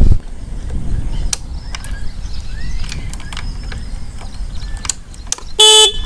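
Hero Honda Passion Pro motorcycle horn giving one short beep near the end, over a steady low rumble and scattered light clicks.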